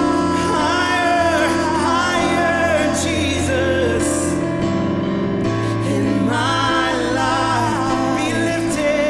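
Live gospel-style worship music: a band holds sustained chords while a voice sings a wavering, ad-libbed melody over them. The chord changes about five and a half seconds in.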